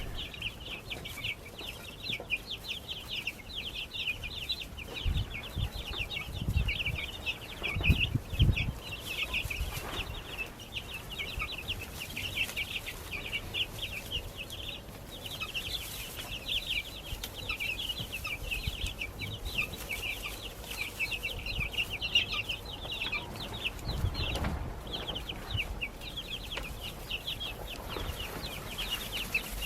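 A brood of baby chicks peeping, many short high chirps overlapping in a continuous chorus, with a few low thumps now and then.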